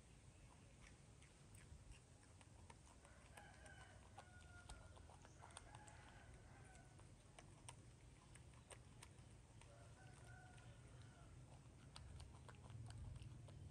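Near silence with faint chicken clucking in two short spells, one a few seconds in and one about ten seconds in, over scattered small clicks and a low hum.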